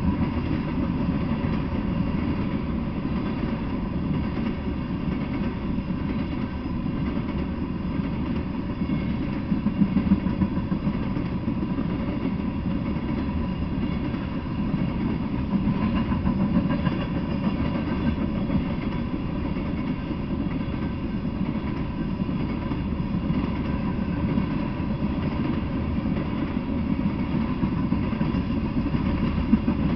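Freight train of tank cars rolling past, a steady rumble of wheels on the rails with a few brief louder clanks, about ten seconds in and near the end.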